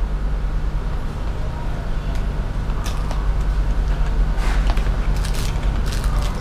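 Box of a new GS Yuasa motorcycle battery being opened by hand: scattered rustles and clicks of packaging from about three seconds in, over a steady low hum.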